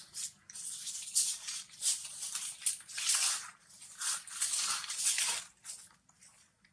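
Irregular bursts of rustling and crackling, like dry fallen leaves being disturbed, stopping briefly near the end.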